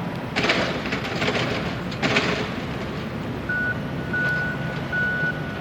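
Truck's reversing alarm beeping at a steady pace, about one beep every 0.8 s, starting a little past halfway, over the steady hum of a running engine. Earlier come two short hissing bursts.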